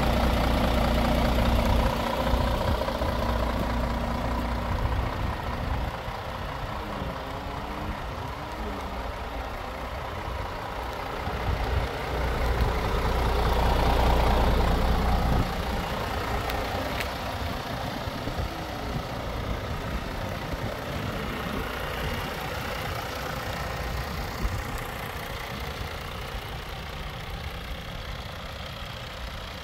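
Scania R450 tractor unit's 13-litre straight-six diesel idling steadily, louder for a few seconds around the middle.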